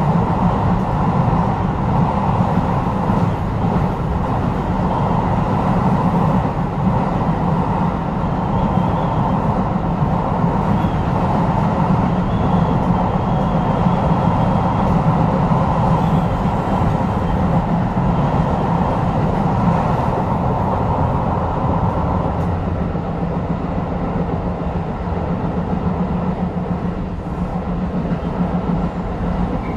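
Tobu 10030 series electric train running between stations, heard from inside the car: a steady rumble of wheels on rail and running gear. The noise eases a little about two-thirds of the way through.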